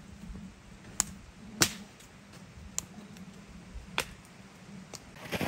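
About six sharp snaps or cracks at uneven intervals, the loudest a little over a second and a half in, over a faint low hum.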